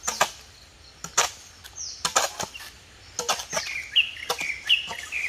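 A string of sharp, irregular knocks and snaps, with bird chirps joining from about two seconds in.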